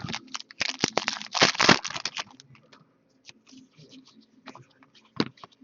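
Trading card packs being handled: a dense run of crinkling and rustling of pack wrapper and cards over the first two seconds or so, then scattered light clicks and taps as cards are flipped through.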